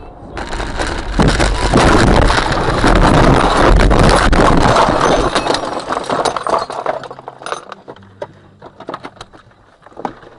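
Vehicle crash: a loud, rough crunching and scraping that builds over about a second, holds for several seconds and fades, followed by scattered clinks and ticks of debris.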